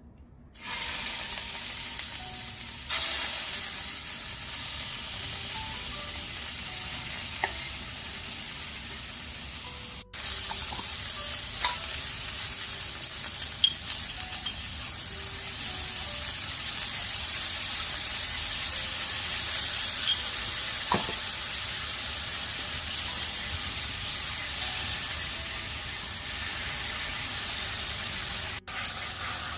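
Yakitori chicken frying in a frying pan: a steady sizzle with a few light clicks, broken twice by brief cuts.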